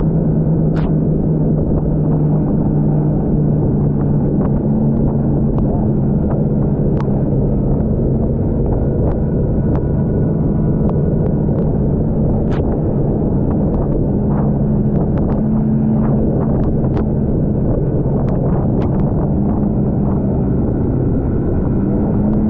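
Snowmobile engine running steadily at trail-cruising speed, heard from the sled itself, its note shifting slightly up and down a few times, with scattered sharp ticks over the drone.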